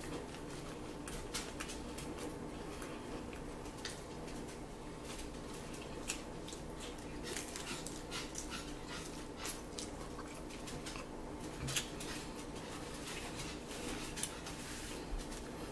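Close-up chewing of a lettuce-wrapped burger: crisp lettuce crunching and wet mouth clicks and smacks, coming irregularly throughout.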